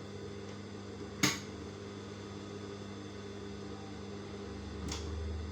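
Steady electric hum of a sewing machine's motor, with a sharp click about a second in and a softer click near the end.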